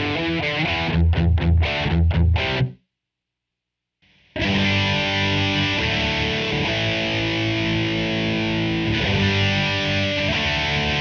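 Electric guitar played through a Line 6 POD 2.0 amp-modelling patch with distortion: quick short chords in a rhythm, then about a second and a half of silence, then held distorted chords ringing on.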